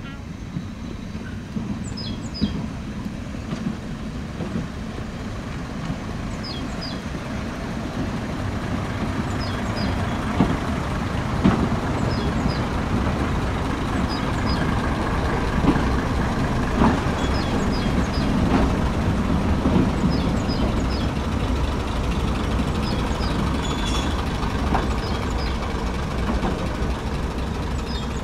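British Rail Class 101 two-car diesel multiple unit approaching and passing close by at low speed, its underfloor diesel engines running with a low rumble that grows louder from about a third of the way in, with a few sharp knocks from the wheels in the middle. Birds chirp throughout.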